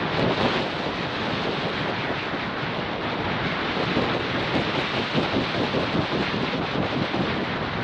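Wind rushing over a bird-mounted camera's microphone in flight: a steady, rough, loud rush that keeps rising and falling.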